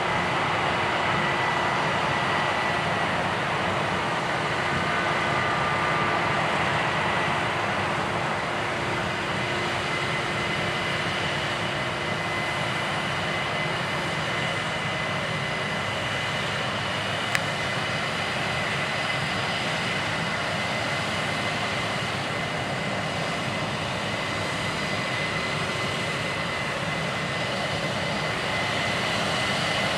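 Heavy diesel farm machinery running steadily in a wheat harvest: a continuous engine drone under a steady high whine, with one brief click a little past halfway.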